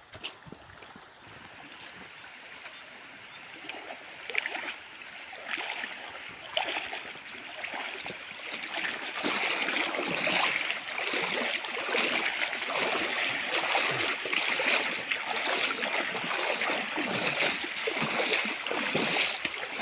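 Rushing stream water, a steady hiss with irregular splashing, growing louder about eight seconds in.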